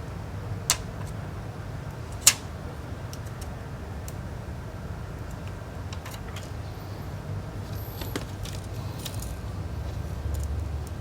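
Small repair tools clicking and tapping against an iPhone 6s during a battery replacement: two sharp clicks in the first few seconds, the second louder, then a few faint ticks over a steady low hum.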